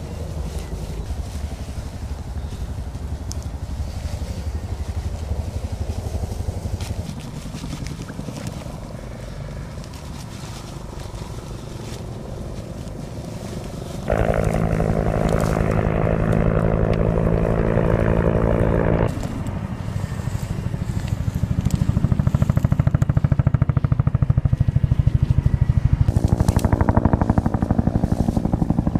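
A motor vehicle engine runs steadily in the background. Its level jumps abruptly louder about halfway through and again near the end. Faint crackles and clicks sit on top.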